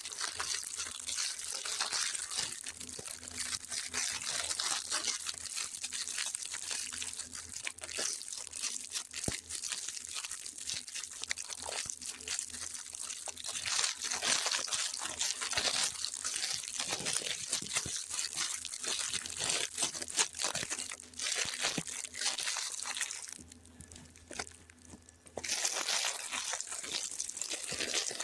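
Packaging crinkling and crunching, with some tearing, as sweet treats are handled and unwrapped: a dense crackle that drops to a brief lull near the end.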